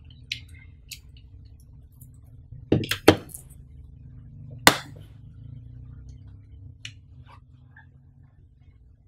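Handling the Samsung Galaxy Buds' USB charging cable and white plastic charging case on a tabletop: a few light clicks and taps, the loudest a double tap about three seconds in and a sharp click near five seconds.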